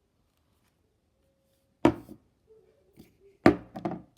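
A few sharp knocks and clicks, once about two seconds in and a quick cluster near the end, from slime-making containers being handled and set down.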